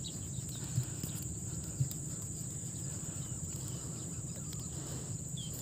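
Steady high-pitched insect drone over a low outdoor rumble, with a few faint soft knocks in the first two seconds and short bird chirps near the end.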